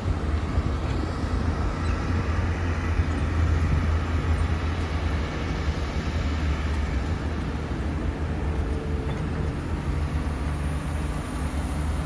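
Komatsu PC450-8 excavator's six-cylinder diesel engine running with a steady low drone.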